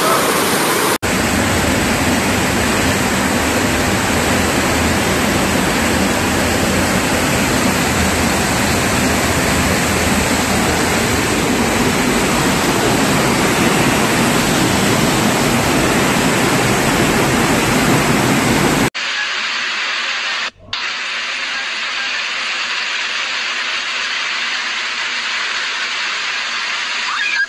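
Flash-flood torrent of muddy water rushing: a loud, steady rush of water. It changes abruptly about a second in and again about two-thirds through, with a brief dropout shortly after the second change.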